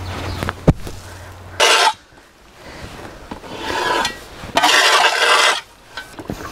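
Metal shovel blade scraping over a concrete paving slab: a rising scrape just before halfway, then a louder, longer scrape of about a second near the end, after a few short knocks at the start.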